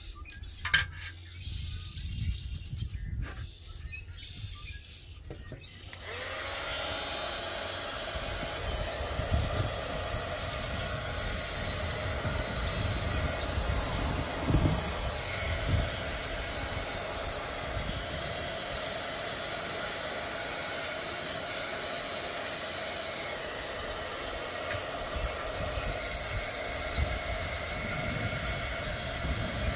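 Small handheld craft heat gun switched on about six seconds in and running steadily, its fan hissing with a steady whine. Before that, a few clicks from handling, with low wind rumble on the microphone.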